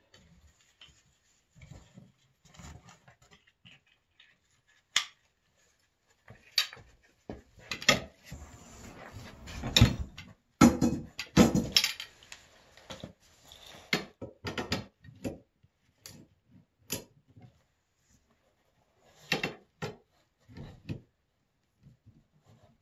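Tow poles of a pulk sled being handled and fitted to the sled's hitches: scattered clicks, knocks and rubbing, with a dense run of clatter and knocks in the middle.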